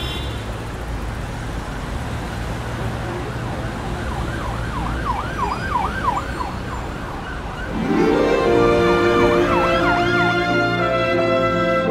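Street traffic noise with an emergency-vehicle siren sweeping rapidly up and down, starting about four seconds in. Music comes in about eight seconds in, and the siren goes on under it for a couple more seconds.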